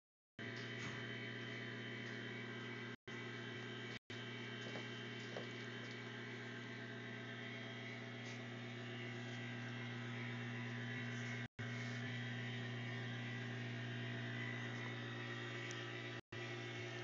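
Steady electric hum with a buzzing edge from a working cutaway car-chassis teaching model. The sound cuts out briefly a few times.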